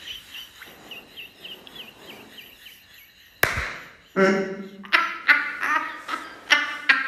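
Helpless laughter: a run of faint, high wheezing squeaks for the first three seconds or so, a sharp gasp about three and a half seconds in, then a woman's loud bursts of laughter, about two a second.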